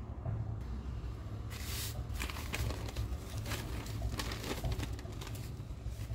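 Sheet of newspaper rustling and crinkling in bursts as it is smoothed flat and folded in half by hand, over a steady low hum.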